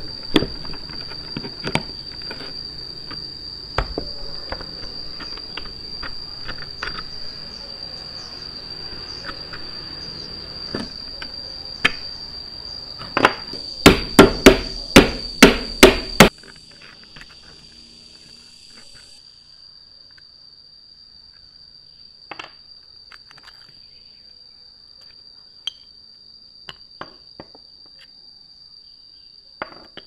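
Metal clicking and scraping of pliers working loose the rusty crank and shaft of a vintage hand coffee grinder, then a quick run of about seven loud metal strikes around the middle as the parts are knocked apart, followed by sparse small clicks. A steady high insect drone runs underneath.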